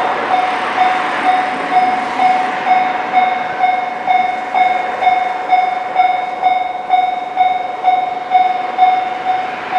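Japanese railroad crossing warning bell ringing a steady, evenly repeated ding, a little over two strikes a second. This crossing's bell has an odd-sounding tone. A rushing noise under it fades out after about two and a half seconds.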